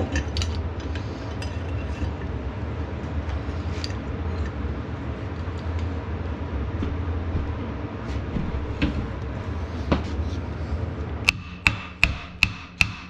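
Steel hammer striking the tractor's metal manifold clamped in a bench vise: five sharp, ringing blows in quick succession, about two and a half a second, in the last two seconds. Before the blows, a steady low hum with occasional light metal clinks.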